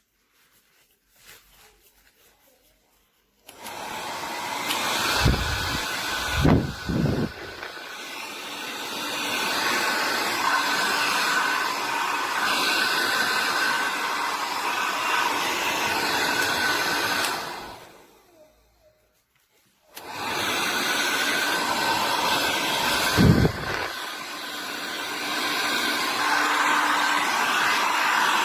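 DEWILY 1800 W ionic hair dryer switched on a few seconds in, running with a steady rush of air and a motor whine, with low gusts of air buffeting the microphone. Past the middle it is switched off and winds down over about a second, then after a two-second pause it is switched on again and runs on.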